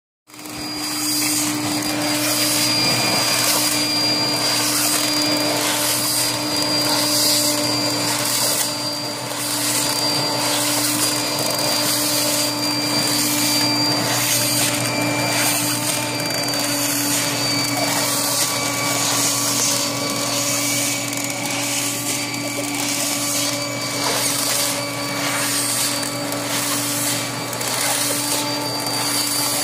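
Air-cushion packaging machine running, its blower giving a steady hum and hiss as it inflates film into a chain of air pillows. The hiss pulses about once a second.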